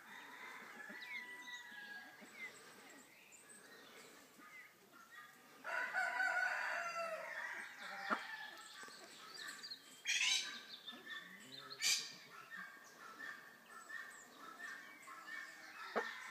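A fowl crowing: one loud call of about two seconds, about six seconds in, over faint steady chirping of other birds. Two short harsh bursts follow, a few seconds later.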